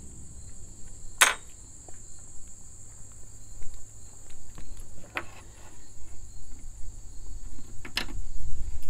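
Steady high-pitched insect chirring, typical of summer crickets, with three sharp clicks from hands working braid and hardware at a truck's hood hinge: about a second in, near the middle and near the end.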